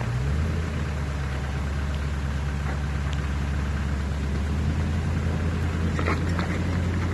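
Land Rover Discovery 2 engine running steadily at low revs as it crawls up a rock ledge, with a few short clicks about six seconds in.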